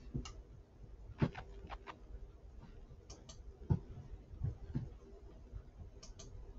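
About a dozen faint, irregular clicks of a computer mouse, some with a light thud, as icons are selected on the LAMP Words for Life communication app.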